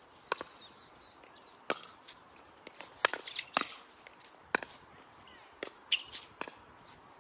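A plastic pickleball being hit back and forth with paddles in a doubles rally: a string of sharp pops about a second apart.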